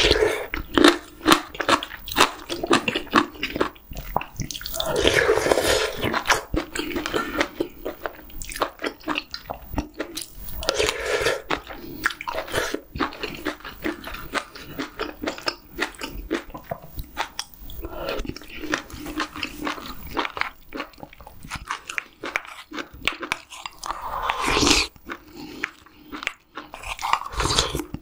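Close-miked mukbang eating of stir-fried webfoot octopus (jukkumi) in spicy sauce: steady wet chewing and biting with rapid mouth clicks. Three longer, louder stretches stand out.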